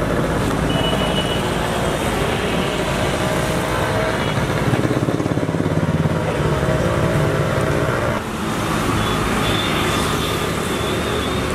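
Road traffic passing close by: motor vehicles on the road give a steady run of engine and tyre noise.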